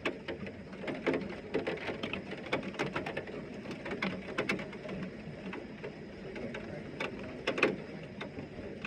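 Heavy rain falling, with irregular sharp taps of drops striking a hard surface, one louder tap about two-thirds of the way through.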